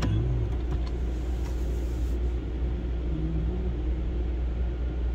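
Steady low rumble of a car heard from inside its cabin, with an even background noise.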